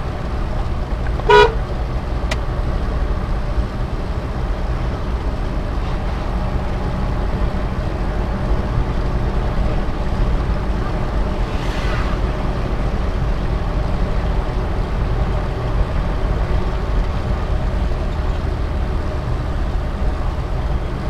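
Suzuki Carry Futura 1.0-litre pickup driving on, its engine and road noise a steady low drone, with one short, loud horn toot about a second and a half in.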